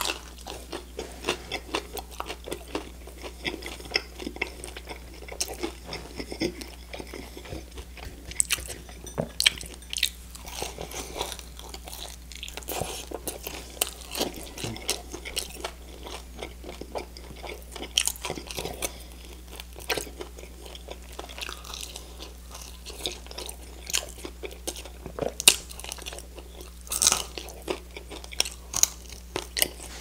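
Crunching and chewing of crispy fried chicken wings and a dill pickle slice: irregular crisp bites, with the loudest crunches near the end.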